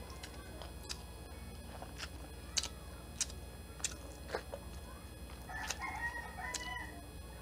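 Close-up eating sounds of shrimp eaten and peeled by hand: about six sharp, wet clicks and smacks of lips, fingers and shell. Near the end a rooster crows once in the background, a stepped call of about a second.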